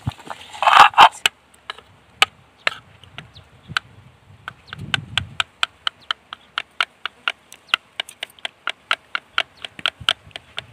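Plastic spoon beating yogurt in a bowl, clicking against the bowl in a steady rhythm about three times a second. A short clatter comes about a second in.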